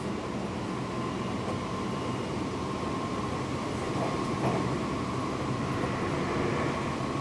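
Seibu 6000 series electric train running, heard from inside a motor car: a steady rumble of wheels on rails with a continuous mid-pitched whine that gets a little stronger near the end.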